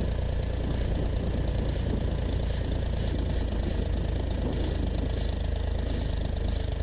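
Cat 304 mini excavator's diesel engine running steadily.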